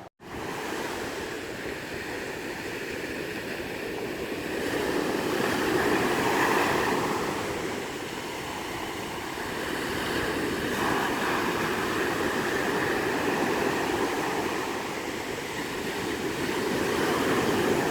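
Sea surf washing onto a sandy beach, a steady wash of noise that swells and fades every several seconds as waves break.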